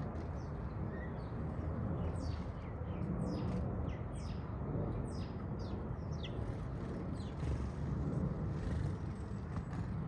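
House sparrows chirping in short, quick, high chirps, with a cluster of them in the middle, over a steady low rumble.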